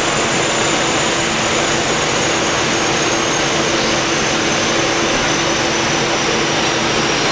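Steady rushing noise of a rolling-road dyno cell, with a Skoda Octavia Mk2 vRS on the rollers coasting down after a power run. A faint high whine falls slowly in pitch.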